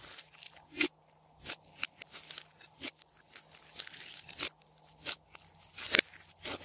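Glossy slime being kneaded, stretched and squeezed by hand in a glass bowl, giving irregular sharp sticky pops and clicks, with the loudest pop near the end.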